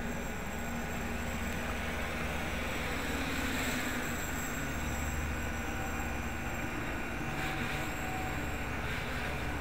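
Homemade 550-size quadcopter's electric motors and propellers whirring steadily at a distance, over a steady hiss.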